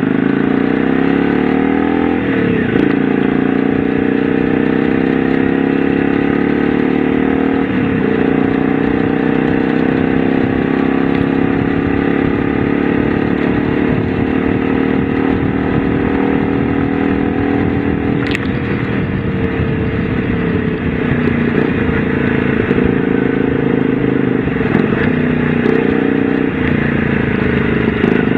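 Honda V-Twin Magna 250's V-twin engine running under way, its pitch climbing and dropping back several times with throttle and gear changes.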